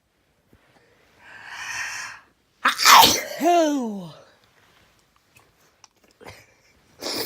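A person sneezes once: a breathy intake, then a loud explosive sneeze that trails off in a voiced cry falling in pitch. A short breathy sound follows near the end.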